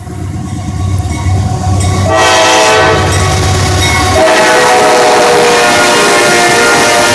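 Lead CSX diesel locomotives of an intermodal train pass close by with their engines rumbling. About two seconds in, the locomotive's air horn sounds loud and is held to the end, its notes changing about four seconds in as the cab goes by.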